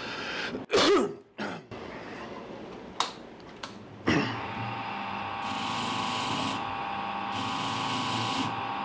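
A few knocks and clatters, then a bench grinder carrying wire and buffing wheels is switched on about four seconds in and runs up to a steady whine. Twice a small knife part is pressed against the spinning wheel, adding a hissing scrub as the grime is brushed off it.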